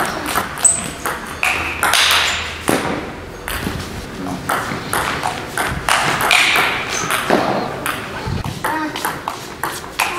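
Table tennis rally: a series of sharp clicks as the ball is struck back and forth with rubber-faced bats and bounces on the table.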